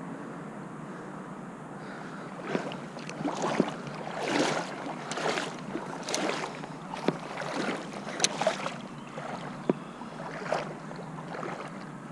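A run of uneven water splashes, about one a second, with a few sharp clicks among them, over a steady rush of river and wind noise.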